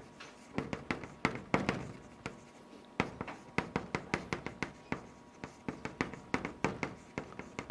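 Chalk writing on a chalkboard: an irregular run of sharp taps and short scratchy strokes, several a second, as characters are written by hand.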